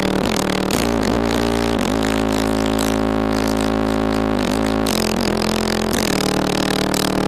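Bass-heavy music played loud through a car audio system's 15-inch Ground Zero Plutonium XQ subwoofer. Long, held low notes change a few times.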